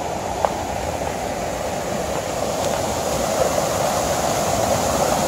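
Rushing water of a rocky mountain stream tumbling over small cascades, a steady rush that grows a little louder from about two seconds in.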